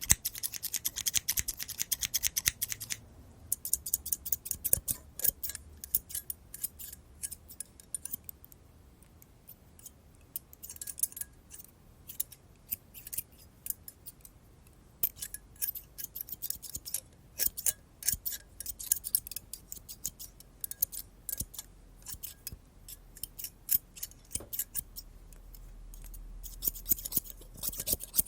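Scissors snipping close to the microphone, blade clicks coming fast and dense for the first few seconds, then in short runs with brief pauses, including one longer pause a little past a quarter of the way in.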